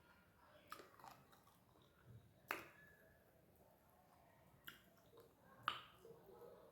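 Quiet close-up eating sounds: soft chewing with a few sharp mouth clicks, the loudest about two and a half and five and a half seconds in.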